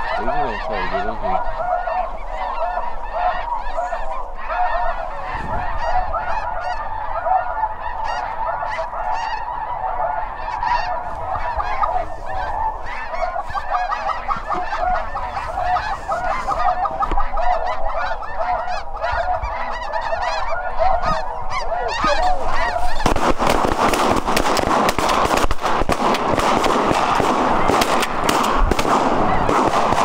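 A big flock of snow geese calling overhead, a dense, constant chorus of overlapping honks. About two-thirds of the way through, the sound thickens and gets louder.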